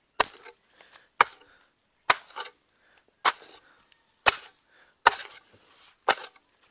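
A hoe chopping into a packed earth bank, seven sharp strikes about a second apart, each followed by a few softer knocks.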